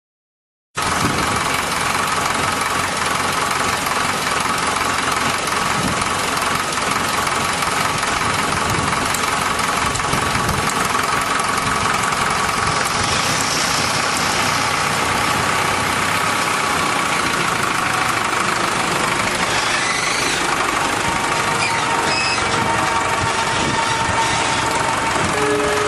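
Tractor engine running steadily as its front-end loader lifts a bulk bag of silica; the sound cuts in abruptly just under a second in.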